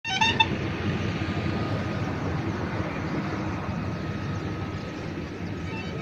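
Steady rumble and rush of a moving vehicle, with a short pitched toot in the first half-second.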